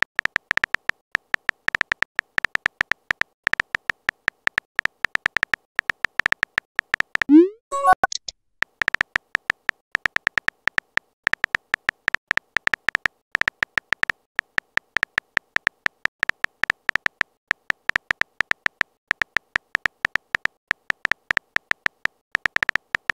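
Texting-app keystroke sound effect: rapid, uneven runs of short electronic beep-clicks, each on the same high tone, as a message is typed letter by letter. About seven seconds in, the typing stops for a short rising pop as the message is sent.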